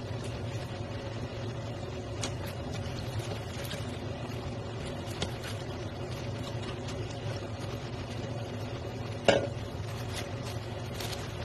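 A steady machine hum with faint crackles and ticks from the frying pan. About nine seconds in a wooden spoon knocks sharply against the pan, then stirs the shredded cabbage in it.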